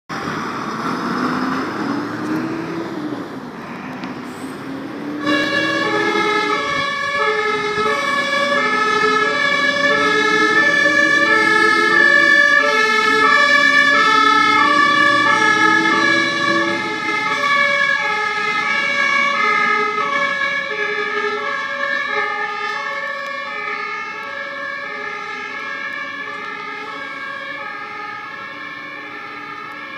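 Fire brigade aerial ladder truck on an emergency run: its diesel engine revs up through the gears as it pulls away. About five seconds in, its two-tone siren (Martinshorn) starts, alternating steadily between two notes over the engine. The siren grows loud, then slowly fades as the truck drives away.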